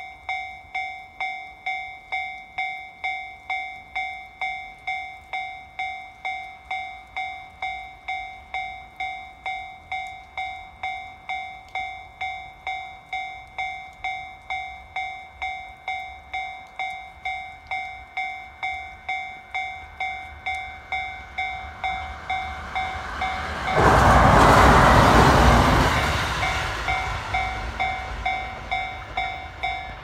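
Japanese level-crossing alarm ringing a steady electronic ding, about one and a half strikes a second. About 24 seconds in, a Jōetsu Line electric train passes over the crossing with a loud rush of wheel and running noise that lasts a few seconds, then fades.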